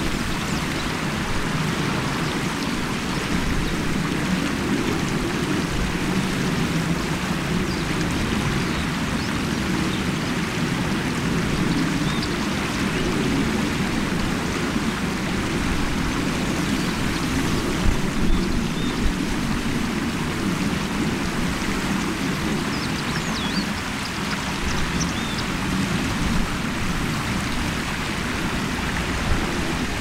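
Shallow river water running over stones, a steady, even rush of flowing water.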